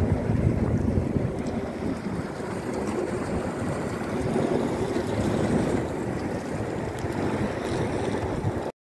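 Wind buffeting the microphone outdoors: a low, gusty rush that swells and eases, and cuts off suddenly near the end.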